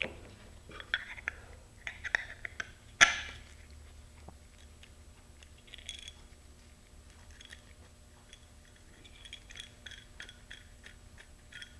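Gloved hands handling small hardware and fiberglass bulkhead discs: scattered clicks and taps of bolts, washers and nuts with a light rustle of nitrile gloves. The loudest is a sharp knock about three seconds in.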